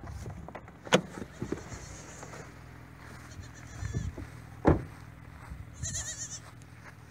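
Goat bleating at a distance, two short wavering bleats about two and six seconds in, with a couple of sharp knocks in between.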